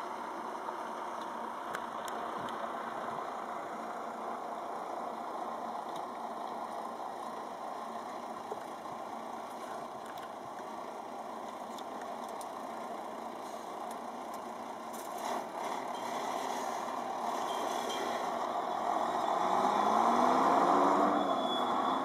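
A steady engine hum of a vehicle running, growing louder near the end, where its pitch briefly rises and falls.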